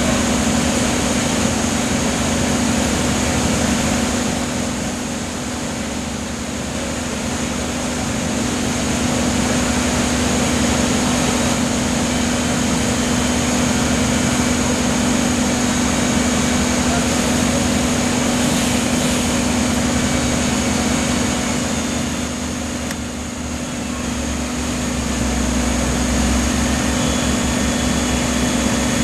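Wood chipper running with a steady, loud engine drone. The sound sags briefly twice, about five and twenty-three seconds in, and a deeper rumble comes in near the end.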